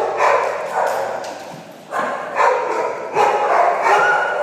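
Dogs barking and yipping in rough play, a string of short barks coming every half second to a second.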